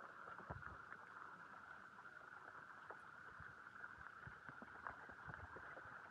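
Faint, steady hiss of heavy rain, with scattered light ticks and taps.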